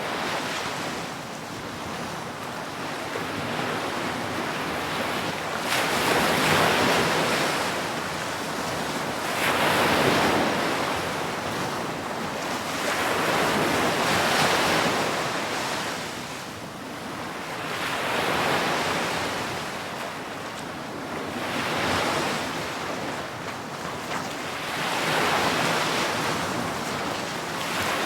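Ocean waves breaking as surf, a continuous rushing wash that swells and falls back in surges about every four seconds.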